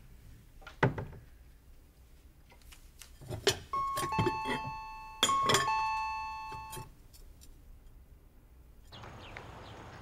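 An electronic two-tone doorbell chime rings ding-dong twice, a high note falling to a lower one, the second ring fading away over a second or so. Before it, a few sharp clinks of dishes being handled at a cupboard.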